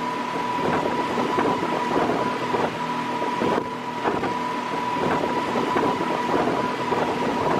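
Motorboat engine running steadily, with a constant high whine over it and wind on the microphone.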